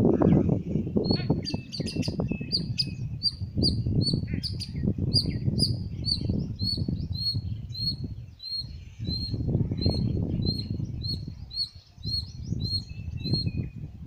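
A squirrel calling in a long run of short, high chirps, about two a second, starting about a second in and stopping shortly before the end. Under it is a louder, uneven low rumbling noise.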